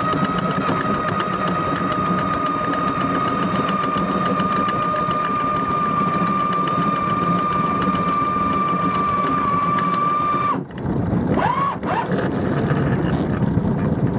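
A long, steady high-pitched tone that holds one pitch for about ten seconds, then cuts off abruptly; a brief rising tone follows about a second later. A steady rushing noise runs underneath.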